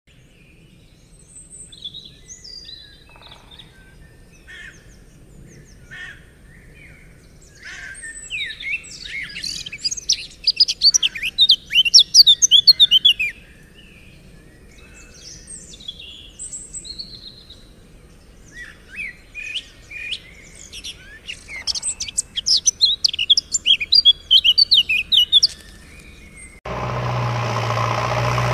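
Small birds chirping and trilling in quick, high calls, in two busier bursts. Near the end, a steady engine-like hum cuts in abruptly.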